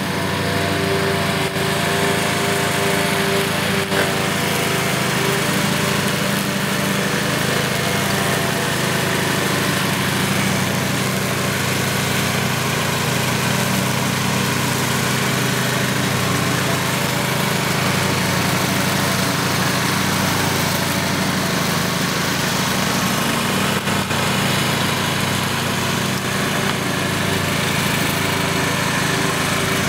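Front-deck ride-on lawn mower running steadily as it mows grass, its engine holding one even pitch throughout.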